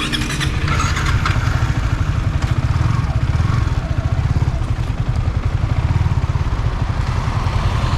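Motorcycle engine running with a rapid, even exhaust pulse.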